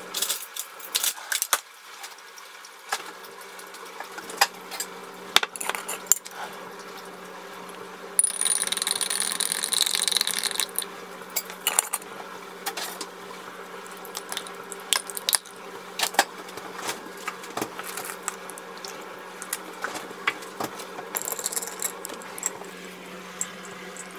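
Sharp clinks and taps of glass and metal: a cut-glass tumbler, a glass jar with a metal screw lid and a metal straw handled on a wooden counter while a powdered green drink is mixed. About a third of the way in there are a few seconds of continuous clinking, like rapid stirring in the glass, and a shorter stretch comes near the end. A steady low hum runs underneath.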